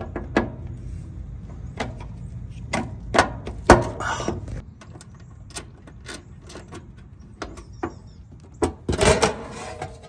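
Screws being backed out of an air-conditioner condenser's sheet-metal access panel with a screwdriver: a run of clicks and light metallic knocks, the loudest a little under four seconds in, then a cluster of rattles around nine seconds in as the metal panel is pulled off.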